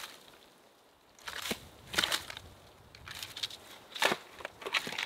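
Footsteps pushing through dry brush and twigs, crunching irregularly about once a second, starting about a second in.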